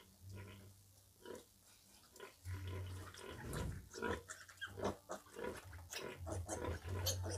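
Litter of piglets suckling at a sow, giving many short grunts and squeaks. A few calls come early, then from about two and a half seconds in the calls crowd closely together.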